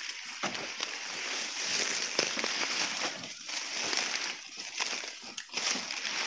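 Dry sugarcane stalks and leaves rustling and crackling as cut cane is handled and loaded onto a bullock cart, with irregular small snaps.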